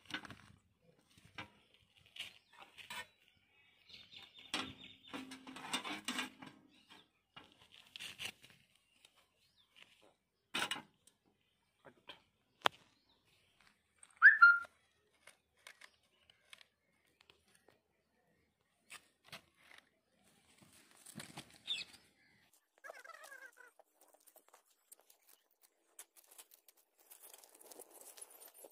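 Dry sticks and dry leaves being handled and stacked around an upturned metal bucket: scattered clicks, knocks and rustles. A short bird chirp about halfway through is the loudest sound, with a few fainter chirps later. Near the end a faint crackle begins as the kindling catches.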